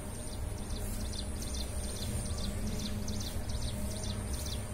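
An animal chirping in a quick regular series, about four short high chirps a second, over a low steady rumble.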